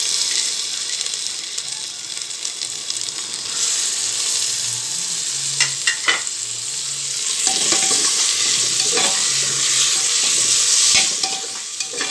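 Cut tomatoes frying with onions in hot oil and ghee in a pressure cooker pot, a steady sizzle that grows louder about a third of the way in. A spoon scrapes and taps against the pot a few times as it is stirred.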